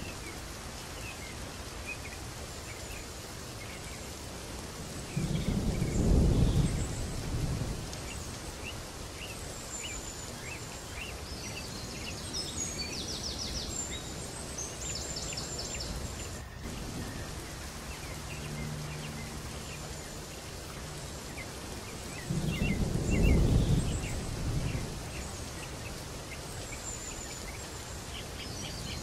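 Steady rain with birds chirping, and two low rolls of thunder, about five seconds in and again near twenty-two seconds.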